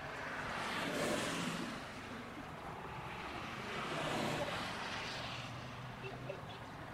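Two vehicles passing one after another, each a swell of noise that rises and fades, the first peaking about a second in and the second around four seconds in, over a faint steady low hum.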